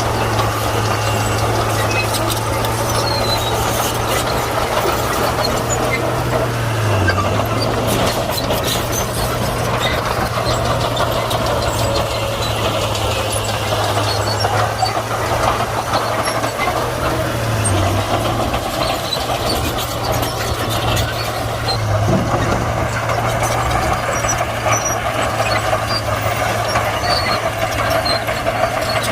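Komatsu D41P crawler bulldozer's diesel engine running steadily, its tracks clanking and squealing as it works. The engine note dips briefly three times, about seven, eighteen and twenty-two seconds in.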